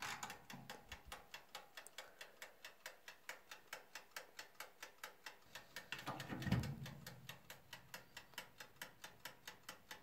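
Mechanical wind-up timer of a Hamilton Beach toaster oven ticking as it counts down, an even four to five ticks a second. About six and a half seconds in there is a louder rubbing thump of a hand on the oven's control knobs.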